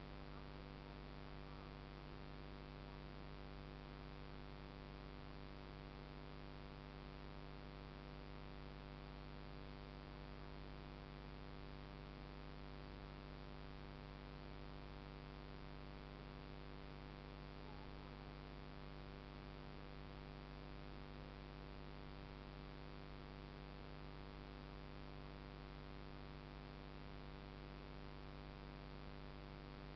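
Faint, steady electrical hum with an even hiss behind it, unchanging throughout, with no other sound standing out.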